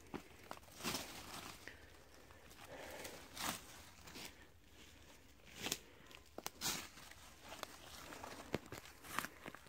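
Scattered footsteps crunching on dry ground and leaf litter, with a few sharper clicks and snaps.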